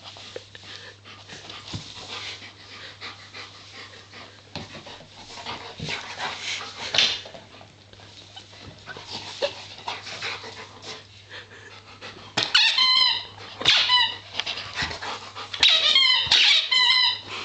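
A dog panting and mouthing a small red squeaky hedgehog toy, then chewing it in two runs of rapid high squeaks near the end.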